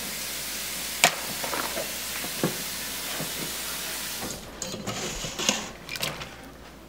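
A steady hiss with a few sharp clicks as blueberries in a glass measuring cup are handled. A little past halfway the hiss drops away, and blueberries are tipped from the glass cup into a stainless steel mixing bowl with light scattered knocks and taps.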